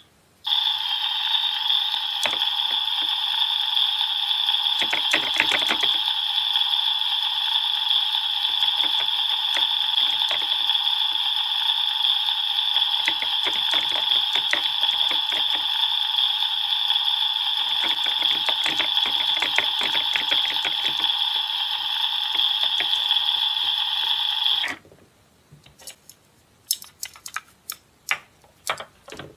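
Anpanman toy kitchen's electronic sizzling sound effect from its small speaker: a steady hiss that starts about half a second in and cuts off suddenly about 25 seconds in. Light plastic clacks of the toy frying pan and spatula on the stove run over it, and a few plastic clicks follow after it stops.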